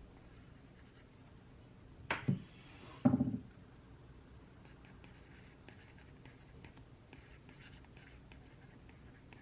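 Desk objects being handled: a knock about two seconds in, a brief sliding rustle, then a heavier knock a second later. After that comes faint, intermittent scratching of a pen writing on paper.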